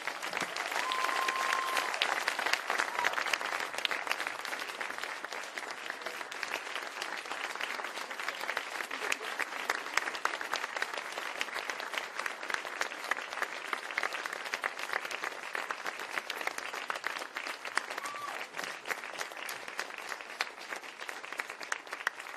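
Audience applause, a dense sustained clapping that is strongest in the first few seconds and then eases slightly without stopping.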